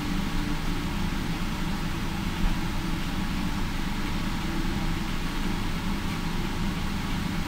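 Steady rolling rumble as a stainless-steel Indian Pacific passenger train passes close alongside another, car after car, with one brief low bump a couple of seconds in.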